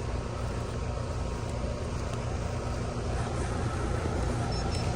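Rudd split-system outdoor unit running: a steady low hum from the compressor and condenser fan.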